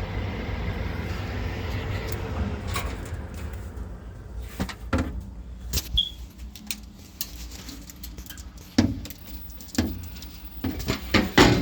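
Goodman gas furnace's blower fan running with a steady low hum. From about four seconds in there are scattered clicks and light metallic rattles of handling, loudest near the end. No burner or ignition sound: the furnace has no flame while the thermostat calls for heat.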